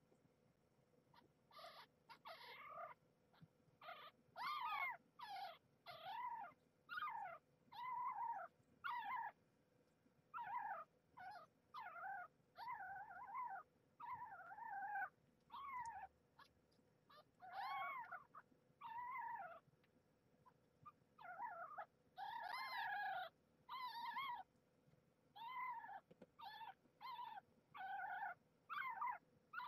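Very young nursing kittens crying over and over, short rising-and-falling mews at about one a second, as they squabble over nursing spots on their mother.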